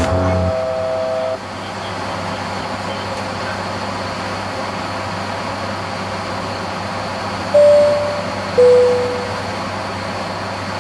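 Steady cockpit drone of an ATR 72 turboprop airliner in cruise: engine and propeller noise with a constant low hum and a faint high whine. A held tone stops about a second and a half in, and two short, loud tones sound about a second apart near the end, the second sliding slightly down.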